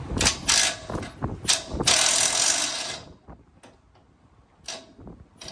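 Hand tools working a bolt on a pickup's bumper mount: a few sharp metallic clicks, then about a second of rapid socket-ratchet clicking, which stops about three seconds in. A single click comes near the end.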